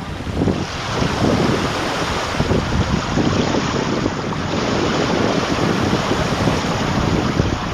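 Gusty wind buffeting the microphone, over the steady rush of sea surf.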